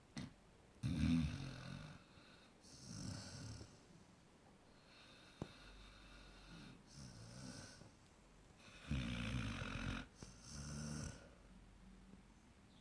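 Eight-month-old basset hound snoring in its sleep: a run of rasping snores about a second long each, coming every second or two, the loudest about a second in and again about nine seconds in.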